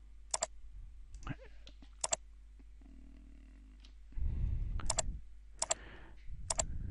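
Computer mouse button clicks: five sharp clicks, each a quick press-and-release pair, spread over a few seconds. A low muffled rustle comes in about four seconds in and again near the end.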